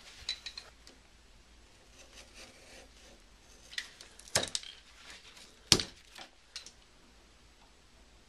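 Light, scattered metallic clicks and clinks of hand tools working Romex cable as the wire is stripped and prepared, with two louder clicks about four and a half and six seconds in.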